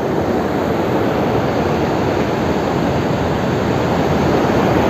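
River water rushing steadily over a check dam in a waterfall-like spill, a loud, even noise with no break.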